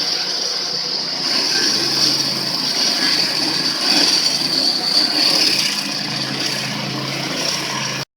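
A motor running steadily with a constant high whine and low hum, cutting off suddenly near the end.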